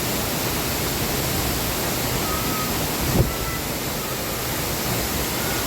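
Steady heavy rush of a 75-foot rainforest waterfall pounding into its pool, with one brief low thump about three seconds in.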